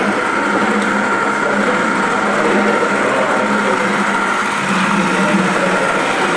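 A small electric motor whirring steadily, with a constant low hum and a higher steady tone.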